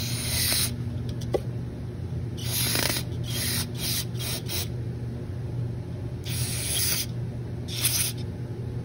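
Aerosol carb cleaner sprayed through its red extension straw into the valve bores of a 4L80e transmission pump, in several short hissing bursts a second or two apart.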